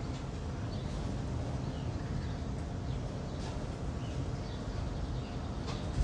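Outdoor ambience picked up by a NEEWER CM22 wireless lavalier mic in mono mode, with a wind muff fitted and no noise cancellation: a steady low rumble with faint, scattered bird chirps and a couple of brief clicks.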